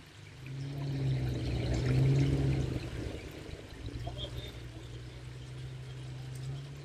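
Jeep engine running under load on a rock trail, climbing in revs about half a second in, loudest around two seconds, then settling to a steady lower drone.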